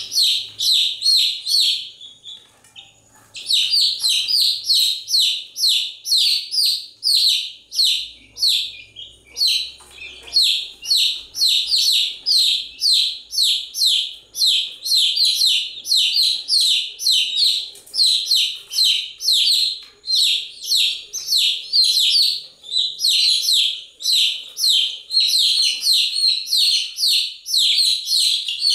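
Baby chicks chirping continuously: a rapid string of high, short, downward-sliding peeps, several a second, with a brief lull about two seconds in.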